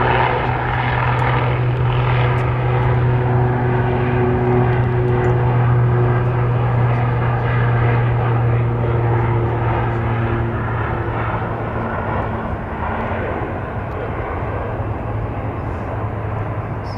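Airliner engines running loud and steady close by, with a deep hum and a few held tones. The sound eases off gradually over the last few seconds as the aircraft moves away.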